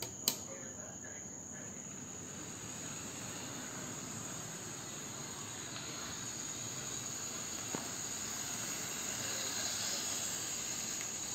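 A model train running on its track: a steady high whine over a low rolling rattle, slowly growing louder. There is a click about a third of a second in and another near eight seconds.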